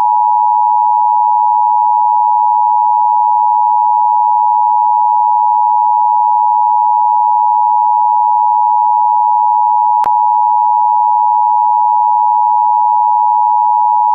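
Loud, steady electronic tone just under 1 kHz: a broadcast station's off-air tone after it ceases transmission. A single click breaks it about ten seconds in.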